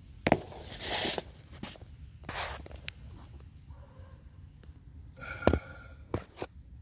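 Handling noises as a phone camera is moved around under a pickup bed: a few sharp clicks and knocks, the loudest just after the start and about five and a half seconds in, with two short breathy rushes of rustling near one and two and a half seconds.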